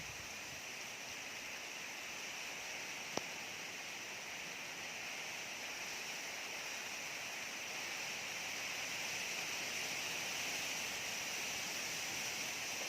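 Steady rain and wind, an even hiss that grows slightly louder in the second half, with one sharp tick about three seconds in.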